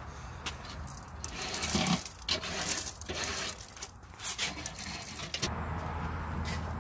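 Grill brush scrubbing the metal cooking grate of a charcoal smoker: a run of quick, uneven scraping strokes from about a second in, stopping about five and a half seconds in.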